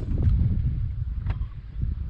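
Wind buffeting the microphone: a loud, uneven low rumble, with one faint click about a second in.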